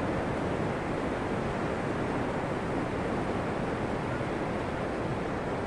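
Steady rush of ocean surf breaking on a sandy beach, with wind on the microphone.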